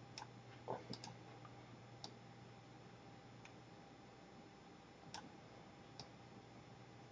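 Faint, irregular clicks of a computer mouse button as items are dragged and resized, over a low steady hum.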